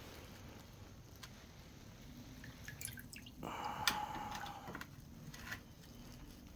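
Brake caliper lifted out of an electrolysis rust-removal bath, the solution dripping and running off it for just over a second about halfway through, with a few light knocks and clicks of the part being handled.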